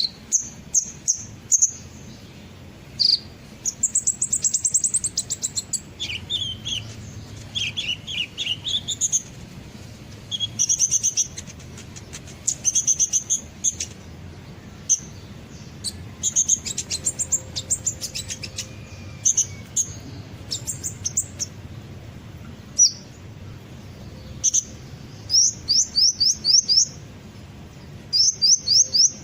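Kolibri ninja (a small sunbird) singing in repeated bursts of rapid, high, thin chirps and short trills, played as a lure song to get other birds to answer.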